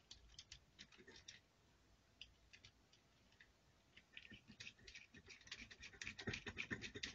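Faint ticks and scratches of a small hand screwdriver turning a screw to fix a steering linkage to the metal steering hub of a 1:18 RC truck. The clicks come quicker and a little louder from about four seconds in.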